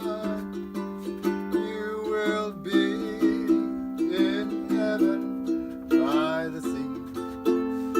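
Background music: a strummed ukulele tune in a steady rhythm.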